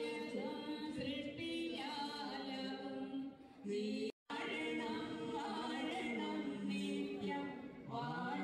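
A song with several singing voices holding long notes in harmony. It breaks off to silence for an instant about four seconds in, then carries on.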